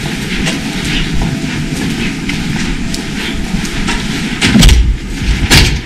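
Steady rumbling noise from a handheld camera carried at a walk, then a couple of thuds and clicks about four and a half seconds in as a door is pushed open.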